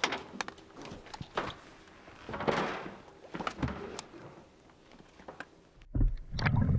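Scattered knocks and clicks of tackle being handled on a fishing boat's deck, with a short hiss about two and a half seconds in. Near the end the sound cuts abruptly to the low, muffled rumble of water heard through an underwater camera.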